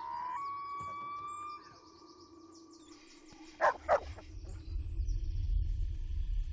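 A dog whines on a long, steady high note, then barks twice in quick succession a little past halfway. A low rumble follows near the end.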